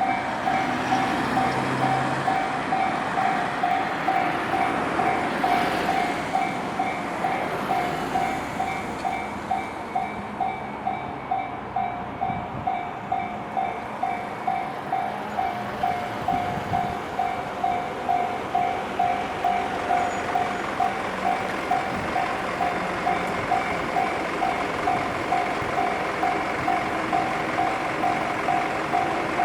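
Japanese railway level-crossing warning bell ringing in a steady repeating ding, about one and a half strokes a second. For the first seven seconds or so the broad rumble of a passing train runs under it.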